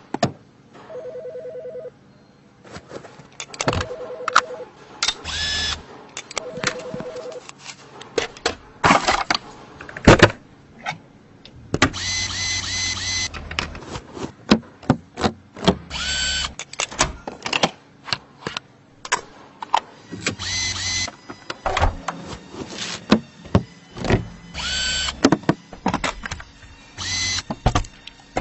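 Clicks and knocks of hands working on plastic and metal parts, with three short beeps in the first seven seconds. From about halfway in come several runs of a small electric motor, each about a second long.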